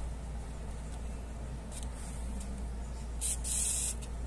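Needle and thread being drawn through grosgrain ribbon in hand-stitching: a short swish of thread through the ribbon about three seconds in, over a steady low hum.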